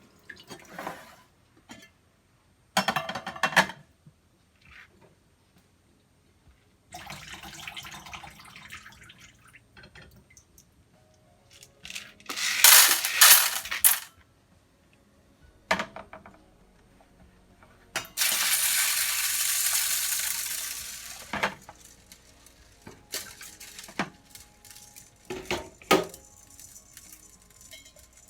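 Dishes and utensils clattering and clinking in a kitchen sink in separate bouts. About two-thirds of the way through, a tap runs steadily for roughly three seconds.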